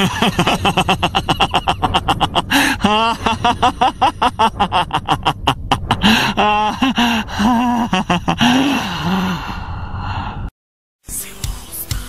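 A man's maniacal laughter from an anime soundtrack: a fast, regular run of laughs at about six a second, then longer wavering laughing cries. It breaks off abruptly near the end.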